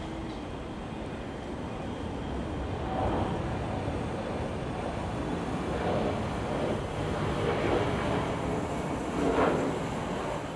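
Steady outdoor rumble of road traffic, swelling several times as vehicles pass.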